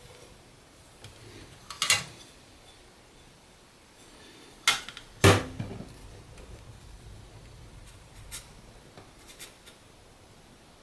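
Hand tools being handled and set down on a workbench during layout of an aluminum sheet: a few sharp knocks and clatters. The loudest are two close together about halfway through, with a smaller one near the start and two light ones near the end, over quiet room tone.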